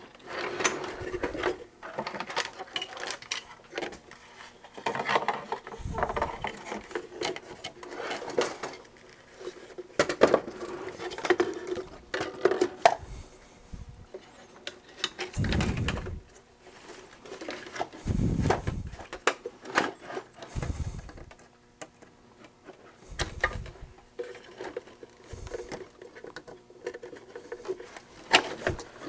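Hands handling the circuit boards, wiring and metal chassis of an Osborne 1 computer: scattered clicks, rattles and knocks, with several dull thumps spread through.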